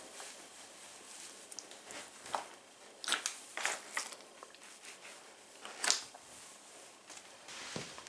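Vibram-soled leather patrol boots twisting and grinding squashed food and plastic packaging into a tile floor. The sound is a faint background broken by a few short, sharp scuffs, the loudest about six seconds in.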